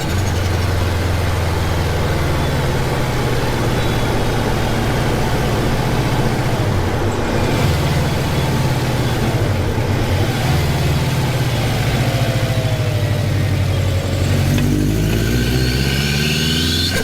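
Turbocharged car engine running loud, its pitch shifting up and down a few times, with a thin rising whistle near the end.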